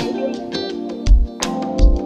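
Background music: plucked guitar over a layered electronic backing, with a deep kick-drum beat about every three quarters of a second.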